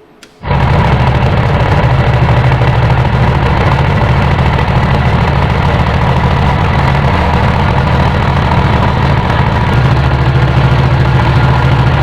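Small four-cylinder V4 model nitro engine starting abruptly about half a second in, then running steadily and loudly.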